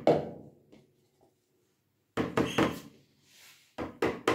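A silicone spatula knocking against a plastic bucket of thick soap mix. A quick cluster of knocks comes about two seconds in, and near the end a regular run of knocks, about four a second, begins.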